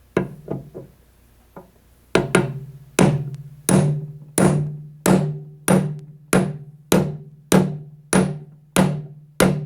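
Hammer blows driving a new bearing down into a mower-deck spindle housing. A few light taps come first, then about a dozen steady, evenly paced metal strikes, each ringing briefly, until the bearing is seated.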